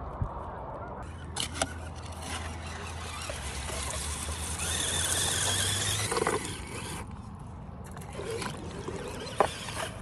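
Traxxas TRX-4M Defender 1:18 RC crawler wading through shallow water: splashing, with the high whine of its small electric motor and gears. A few sharp clicks, the loudest near the end.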